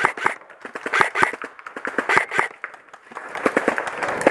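Airsoft gunfire: a run of sharp, irregular pops through the first two and a half seconds. After a short lull, rustling of movement through the forest undergrowth begins about three seconds in.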